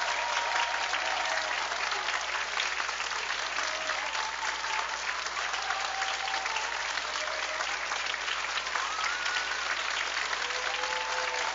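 Audience applauding steadily, dense clapping with a few faint voices over it.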